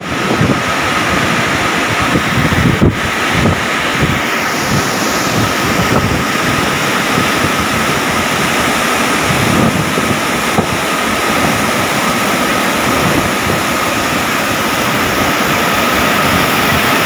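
Loud, steady rush of a flooded river pouring over rocks at the lip of a waterfall, with wind buffeting the microphone in gusts. A thin steady high tone runs underneath.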